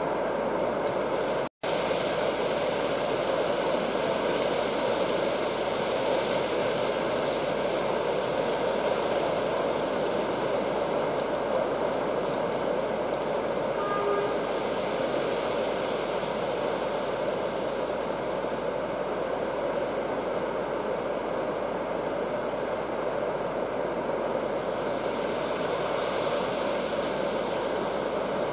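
Steady rushing noise, broken by a brief drop to silence about one and a half seconds in.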